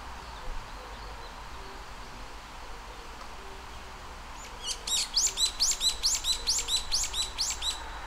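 Brown-eared bulbul calling: a fast run of about a dozen short, high chirped notes, about four a second, starting about halfway through and stopping just before the end.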